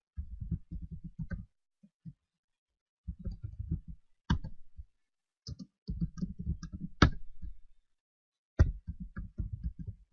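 Typing on a computer keyboard in quick bursts of keystrokes with short pauses between them. A few single keystrokes stand out sharper than the rest, the loudest about seven seconds in.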